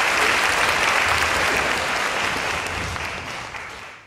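Audience applauding, a dense steady clatter of many hands that fades away near the end.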